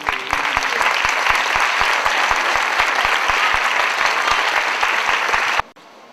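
Audience applauding, with a steady low beat of thumps about four a second running under the clapping. It cuts off suddenly about five and a half seconds in.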